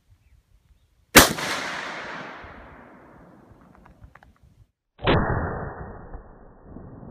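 A single shot from a Stag Arms AR-15 rifle about a second in, sharp and loud, its echo rolling away over the next few seconds. About five seconds in comes a second loud boom, duller and without the high crack, that also fades out slowly.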